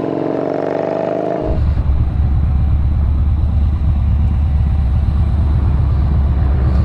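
Motorcycle engine running steadily. About a second and a half in, a loud low rumble takes over, and it cuts off suddenly near the end.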